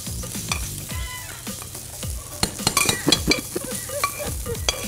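Shrimp sizzling in a hot frying pan while being stirred with metal tongs, with frequent clicks and scrapes of the tongs against the pan. The shrimp are close to done, since they need only about a minute and a half to two minutes.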